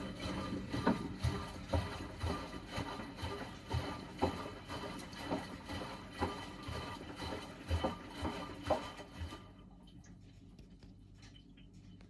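Miele front-loading washing machine on a boil wash, its drum turning with water sloshing and splashing inside and irregular low thuds about twice a second. The tumbling stops about nine seconds in, leaving only a faint hum.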